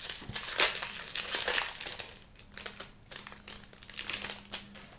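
Foil wrapper of a Magic: The Gathering Double Masters booster pack crinkling and crackling as it is torn open by hand, loudest in the first two seconds, then in shorter bursts.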